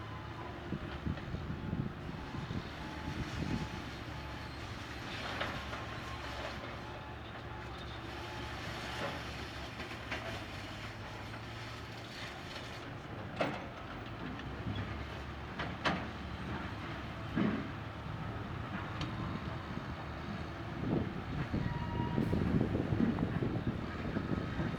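Excavator's diesel engine running steadily at work, with several sharp clanks in the middle and a louder rumble near the end.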